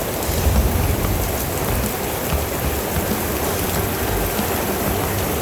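Heavy rain pouring down steadily, a continuous even hiss of falling rain during a thunderstorm.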